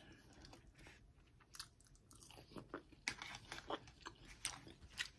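Close-miked chewing of a forkful of chicken topped with crusted cheese and bacon: faint wet mouth clicks and small crunches, several a second, starting about a second and a half in.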